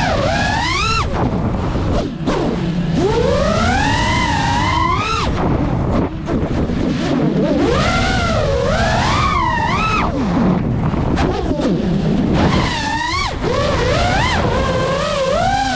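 FPV freestyle quadcopter's motors and propellers whining, the pitch sweeping up and down in several swells as the throttle is pushed and cut, over a steady rush of wind and prop wash.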